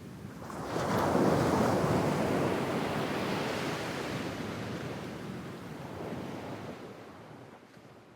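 A medium wave breaking on a sandy beach: the surf rises sharply about a second in, then washes up the sand and slowly dies away.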